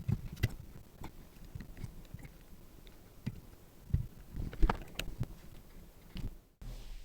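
Scattered light clicks, taps and knocks of hands and small tools handling the microphone and its parts on a workbench, with a few louder knocks about four to five seconds in; the sound cuts off suddenly near the end.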